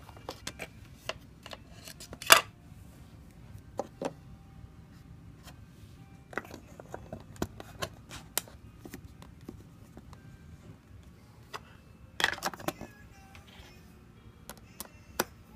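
Plastic clicks and knocks from handling the back of a handheld LCR meter while a 9-volt battery is pushed into its battery compartment, with a sharp click about 2 s in and a cluster of clicks about 12 s in.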